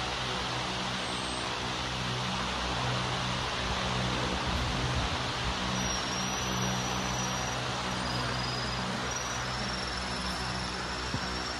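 Steady outdoor background hiss with a low, even hum underneath; from about six seconds in a faint thin high whine comes and goes.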